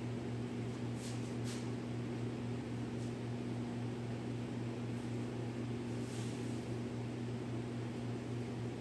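Steady low electrical hum with an even hiss, as from running shop equipment, with a few faint, brief scuffs.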